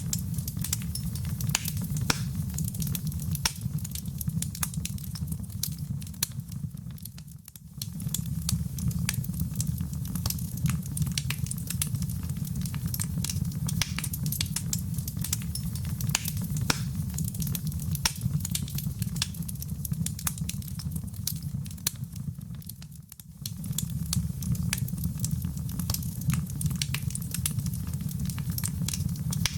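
Fireplace fire burning with a steady low rumble and many sharp, irregular crackles and pops from the burning wood. The sound briefly fades down and back up twice.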